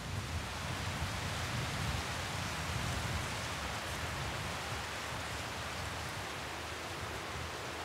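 Steady open-air field ambience: an even hiss over a low, uneven rumble that swells slightly a couple of seconds in.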